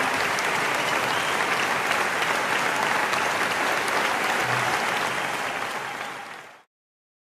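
Audience applauding, a steady clatter of many hands clapping that dies away and then cuts off abruptly near the end.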